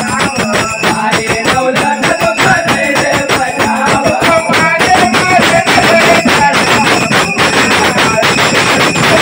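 Nimadi devotional folk music: a mirdhing (mridang-type barrel drum) played in a fast, dense, even rhythm under a wavering melody line.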